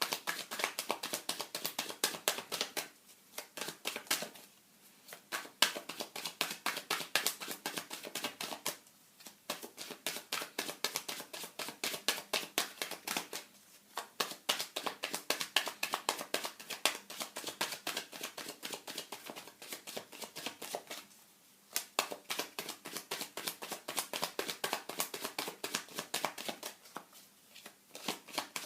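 A deck of tarot cards being shuffled by hand: fast, continuous flicking and slapping of cards in long runs, broken by brief pauses about every five to seven seconds.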